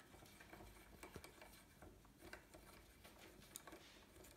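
Near silence with a few faint, scattered metal clicks from a hex key working loose a BMX crank bolt.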